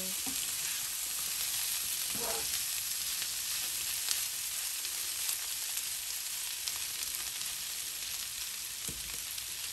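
Bottle-gourd skin and shrimp sizzling steadily in oil in a nonstick frying pan while a spatula stirs them, with a few light clicks of the spatula against the pan.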